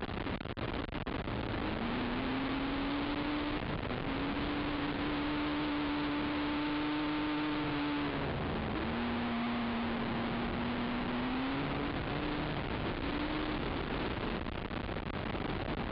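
Racing ATV engine running hard at speed, its pitch climbing and holding, dropping sharply a little past halfway, then climbing again, under a dense rush of wind noise on the onboard camera's microphone.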